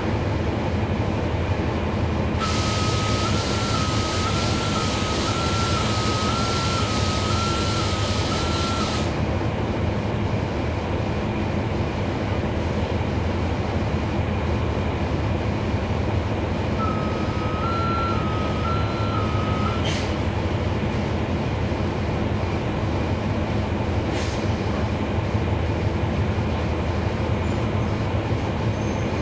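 Cummins ISL9 diesel engine of a NABI 40-SFW transit bus running steadily, heard from inside the bus. A few seconds in, a long air hiss sounds for about six seconds together with an alternating two-tone warning chime. The chime sounds again briefly later, followed by two short air hisses.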